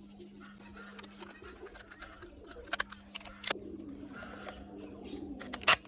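A few sharp clicks of a plastic toy Desert Eagle pistol being handled, the loudest just before the end, over a steady low hum.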